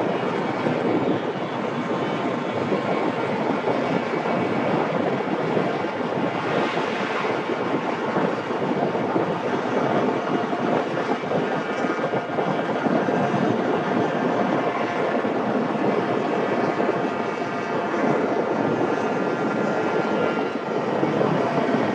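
Motorcycle engine running steadily at cruising speed at a steady pitch, mixed with wind rush on a microphone mounted on the moving motorcycle.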